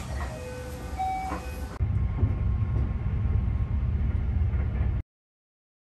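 Running noise of an overnight sleeper train, heard inside the carriage: a steady low rumble with a few brief high tones over it at first. It grows louder about two seconds in and cuts to silence about a second before the end.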